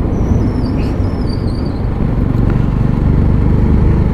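Motorcycle running steadily along a road, engine and wind rumble heard from the rider's seat, with a faint high warbling over it in the first two seconds.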